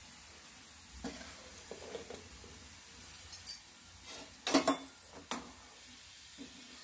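Metal kitchenware clinking and knocking: a metal plate being set down and shifted on a steel pot on the stove, with several scattered clinks and the loudest pair about four and a half seconds in.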